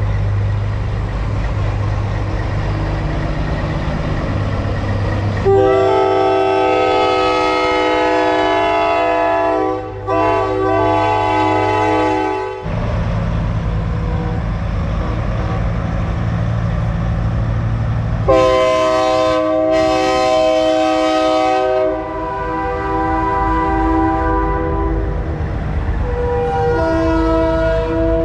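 Semi truck diesel engine running, with a multi-chime train-style air horn sounded in long blasts. The first runs about seven seconds from roughly five seconds in, the second about four seconds from around eighteen seconds in, and a lower-pitched horn chord sounds near the end.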